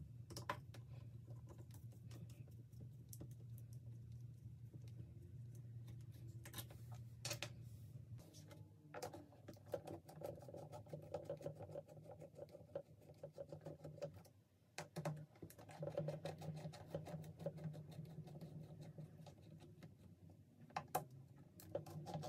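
Workbench handling noise: scattered light clicks and taps of hand tools and knobs against the amplifier's metal front panel, over a low steady hum.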